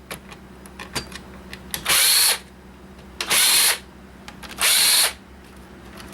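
Power drill-driver running in three short bursts of about half a second each, spaced about a second and a half apart, backing out screws to free a motherboard. Small clicks and handling knocks come between the bursts.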